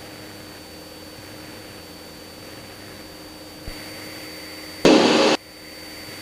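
Steady drone of a Cessna 172's engine and airflow in the cabin in flight, with a short loud burst of noise about five seconds in.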